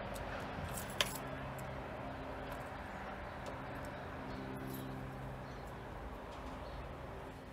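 Diesel locomotive engine running steadily at low revs as a slow work train passes along the track, with a sharp click about a second in.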